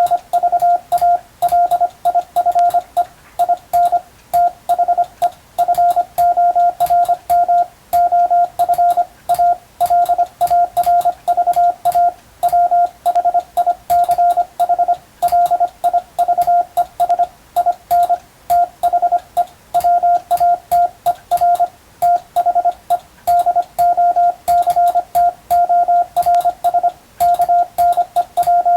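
Morse code (CW) as a steady mid-pitched tone keyed on and off in dots and dashes at an even sending speed, with light clicks along with the keying. It is English-language telegram practice text, sent for radiotelegraph operator exam and receiving practice.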